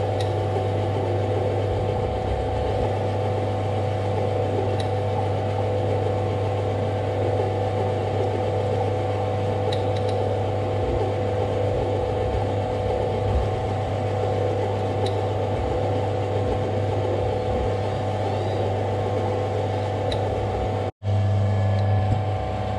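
Metal lathe running steadily under power, a spiral-fluted reamer fed from the tailstock into the spinning steel workpiece, with a faint tick about every five seconds. The sound cuts out for an instant near the end, then carries on.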